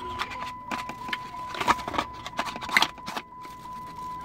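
Handling noise: irregular crackles, rustles and light taps of a cardboard parts box and plastic packaging turned over in the hand, with a faint steady high tone running underneath.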